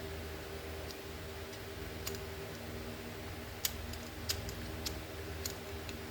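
A few sharp, separate clicks at irregular intervals from a click-type torque wrench being reset to 50 ft-lb, over a steady low hum.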